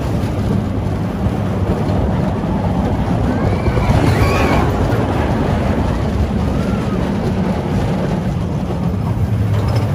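Big Thunder Mountain mine-train roller coaster running on its track, heard from on board as a steady low rumble. About four seconds in, a brief high, wavering sound rises and falls over the rumble.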